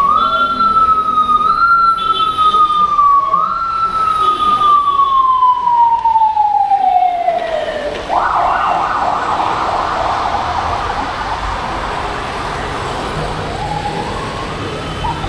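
A siren wailing: its pitch falls and jumps back up about every second and a half, then glides down slowly for several seconds. About eight seconds in, a harsh, steady noise takes over.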